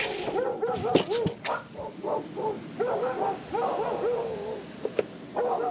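An animal calling in quick runs of short calls that rise and fall in pitch, several a second, with a few sharp knocks among them.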